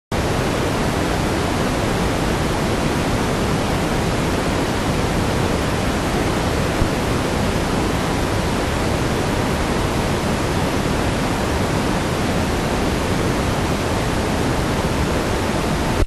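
Steady, even static hiss from an analog video receiver picking up no signal, the noise that comes with a screen full of snow.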